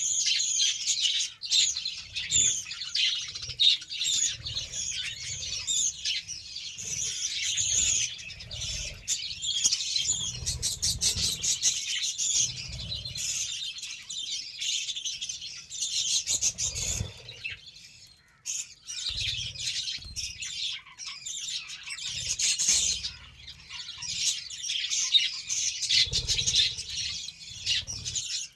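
Budgerigars chattering: a dense, continuous stream of quick high chirps and warbles from several birds, with soft low thumps now and then.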